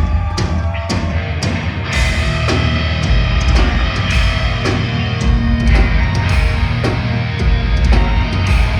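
Heavy metal band playing live and loud: distorted guitars, bass and drum kit, with regular drum hits driving the song.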